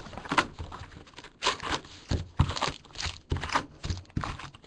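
Packaging crinkling and tearing, a series of sharp irregular crackles, as a sealed box of trading card packs is opened.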